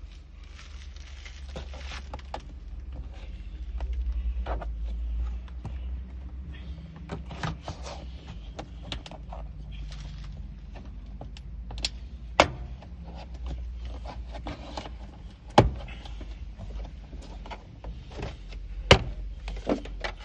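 Door trim panel being pried off a car door: scattered clicks, scrapes and knocks, with a few sharp snaps about halfway through and near the end as the plastic retaining clips pop loose. A low rumble runs underneath.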